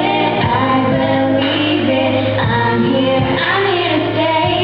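Middle-school girls singing into microphones, two soloists leading with a show choir behind, over instrumental accompaniment with a steady bass note.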